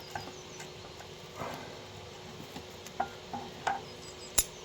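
Scattered light metallic clicks and knocks of hand tools, such as vice grips and spanners, working on seized bolts of a Land Rover axle, with one sharp click near the end. A faint steady hum runs underneath.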